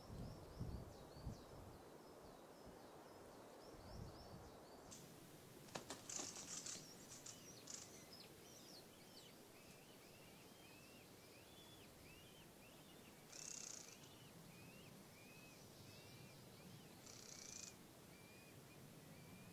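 Faint bird calls: a fast run of short, high chirps, then after an abrupt change a slower series of repeated call notes, one or two a second. Brief bursts of high hiss come and go among the calls.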